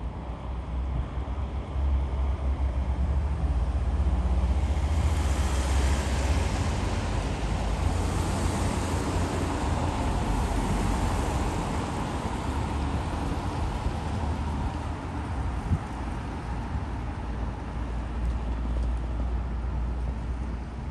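Deep steady rumble of the large cruise ferry Viking Glory moving past, with a rushing hiss that swells for several seconds a few seconds in and then eases off.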